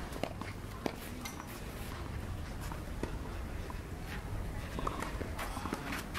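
Ambient sound of an outdoor clay tennis court: light footsteps and scuffs on the clay, with scattered faint clicks over a low steady rumble.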